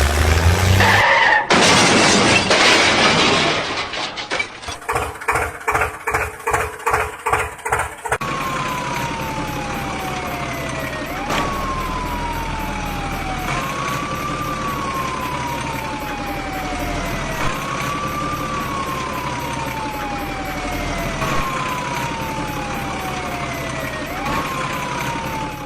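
A siren wailing in repeated falling sweeps, each about two to three seconds long and snapping back up in pitch, over a steady vehicle rumble. Before the siren starts, there is a burst of crashing noise and then a run of rhythmic knocks, about two a second.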